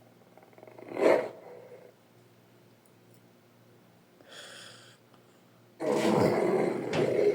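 Sound effects for the Andrewsarchus creature of Primal: a short loud snarl about a second in, a faint breathy hiss around the middle, then a long, loud, rough growl starting near the end.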